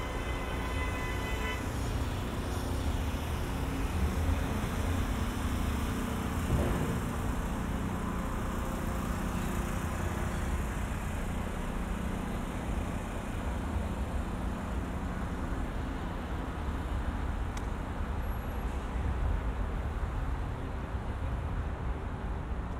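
Steady city road traffic, a continuous rumble of passing cars and trucks. A short pitched tone like a horn toot sounds at the very start and stops about a second and a half in.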